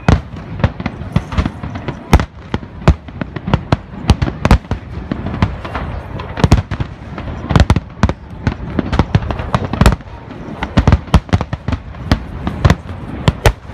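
Fireworks display: a dense, irregular barrage of aerial shell bursts, several booms a second with no break, some much louder than the rest.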